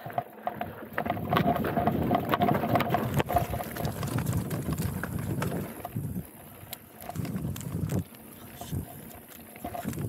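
Mountain bike riding down a rocky dirt trail: tyres crunching over gravel and stones and the bike rattling over bumps, with many small knocks and clicks. It drops to quieter stretches about six and eight seconds in.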